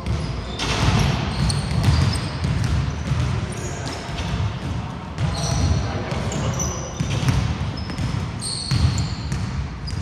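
Basketball play on a wooden court: a ball bouncing and feet landing on the floor, with repeated short, high sneaker squeaks and players' voices.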